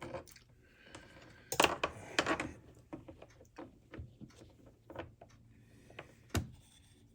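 Scattered clicks and taps of small tools and parts being handled on a workbench, with a louder flurry of clatter about a second and a half in and a single sharp knock near the end.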